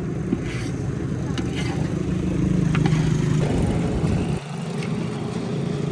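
Steady low engine drone with a few faint clicks over it, changing abruptly about three and a half and again about four and a half seconds in.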